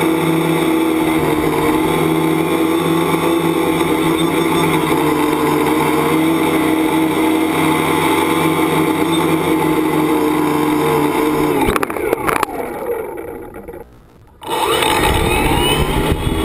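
Tricopter's electric motors and propellers buzzing steadily in flight. About twelve seconds in the motors spool down, with their pitch falling to a brief near stop, then spin back up.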